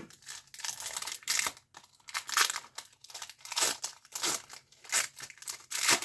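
A trading card pack's wrapper being torn open and crinkled by hand: a string of short, irregular rustling tears.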